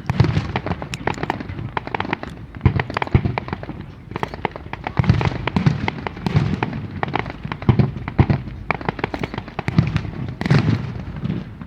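Aerial fireworks going off in quick succession: a dense run of sharp bangs and crackles, with heavy booms every second or so throughout.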